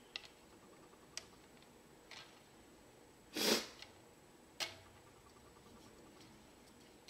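Hand tool working on a small brushless outrunner motor clamped in an alloy pliers wrench: a few light metal clicks and taps, and one short, louder rasp about halfway through, followed by a sharper click.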